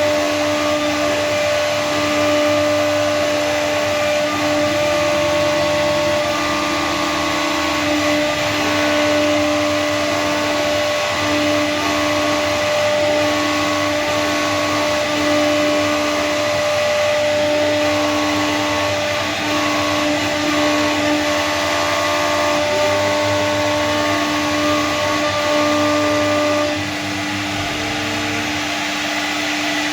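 CNC router carving PVC board: the spindle gives a steady whine, while the axis motors' tones glide up and down as the cutting head changes speed and direction. Near the end one of the steady tones drops out and the machine gets a little quieter.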